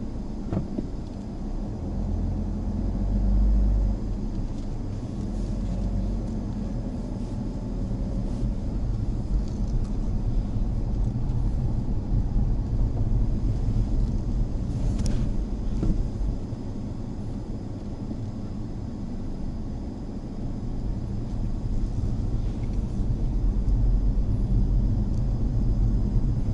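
Mazda Axela Sport driving: a steady low rumble of engine and road noise that swells and eases slightly, with a single sharp click about halfway through.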